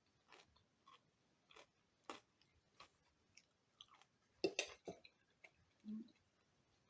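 Quiet close-up eating sounds: a person chewing, with scattered small clicks and a louder cluster of them about four and a half seconds in.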